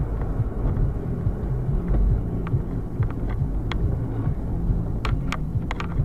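Low, uneven rumble of a car on the move, with a few sharp clicks in the second half.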